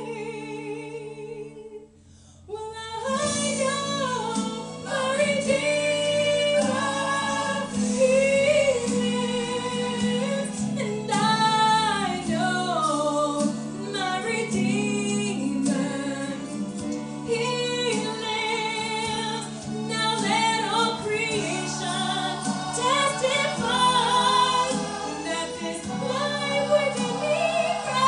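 A woman sings a worship song solo into a microphone over a sustained low instrumental accompaniment. There is a short break about two seconds in before the next phrase.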